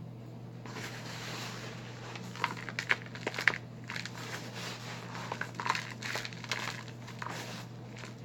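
Balls of pressed Ajax and Foca cleaning powder crushed and crumbled by hand: a gritty crackling with many sharp crunches, the loudest about two and a half to three and a half seconds in. A steady low hum runs underneath.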